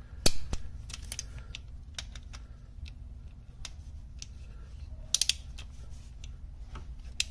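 Metal clicks and taps of a socket and torque wrench being fitted to and turned on a transmission case plug bolt as it is tightened. A sharp click comes just after the start, and a louder double click about five seconds in.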